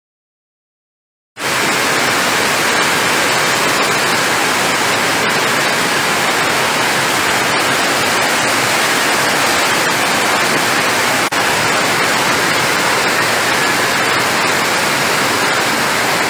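Steady, loud static-like hiss, like white noise, cutting in abruptly after a second and a half of silence, with one brief dip about halfway through.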